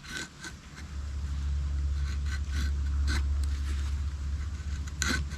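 Fixed-blade knife shaving feather-stick curls from a piece of hard, knotty wood: a series of short, irregularly spaced scraping strokes. Under them runs a steady low rumble.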